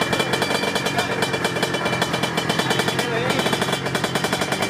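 Two-stroke drag motorcycle engine running at the start line, a rapid, even stream of popping exhaust pulses held steady at one speed.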